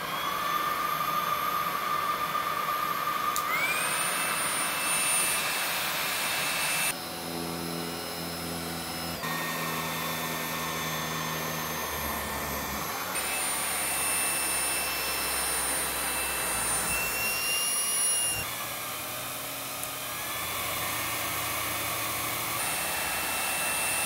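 Xiaomi Mijia 1C cordless stick vacuum running, a steady high motor whine that steps up and down in pitch several times as it is switched between its power modes. Some stretches are with its motorized brush attached, adding a lower hum beneath the whine.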